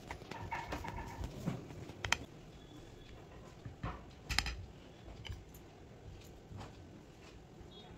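Small kitchen knife cutting through soft coconut fudge and clicking against a ceramic plate: a few sharp clicks, the loudest about four seconds in.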